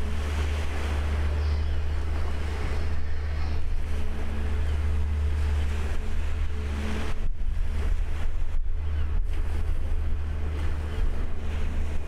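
Backhoe dredger working: a steady low machinery rumble with a faint constant hum, under wind buffeting the microphone, and water rushing and splashing as the bucket comes up streaming water, easing about seven seconds in.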